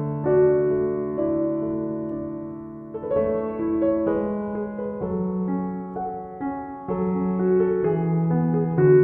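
Slow background piano music: held notes and chords changing about once a second.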